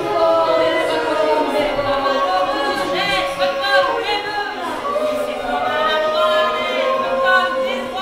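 Unaccompanied female voices singing, several vocal lines overlapping at once. About three seconds in, quick sliding swoops rise and fall over the sustained notes.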